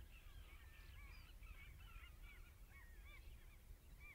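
A flock of birds calling faintly, many short rising-and-falling calls overlapping throughout, over a low rumble.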